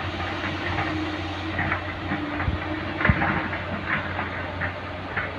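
Diesel engine of a large truck-mounted crane running steadily as the crane drives slowly, a low even hum with a couple of short thumps near the middle.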